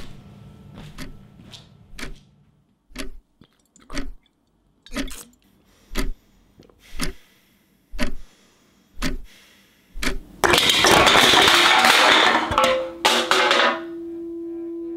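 A clock ticking about once a second, the ticks growing louder, then cut off by a loud burst of rushing noise lasting about three seconds. A steady low drone tone comes in near the end.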